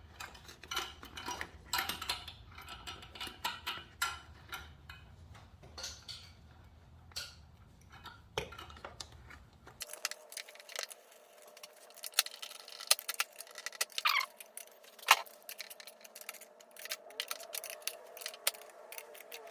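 Small plastic and metal clicks and clinks as motorcycle parts are handled and fitted back into place by hand, many light ticks scattered throughout. A faint steady hum runs under the second half.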